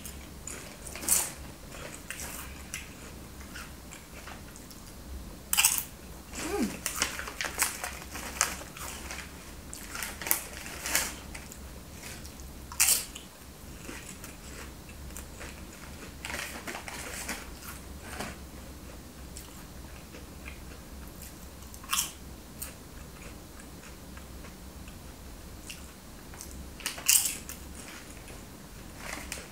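A person chewing and crunching a salty snack close to the microphone, with short sharp crinkles from a plastic snack packet being handled now and then.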